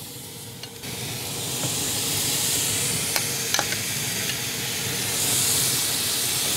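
Marinated chicken sizzling as pieces are laid with metal tongs on the hot grate of a Yoder grill over direct fire. The sizzle swells about a second in, and a few sharp clicks of the tongs against the grate come through.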